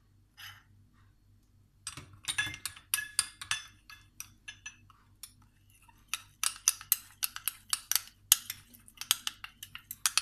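Metal spoon clinking against a dish while mixing icing sugar into olive oil: quick irregular clinks start about two seconds in, pause briefly, then carry on.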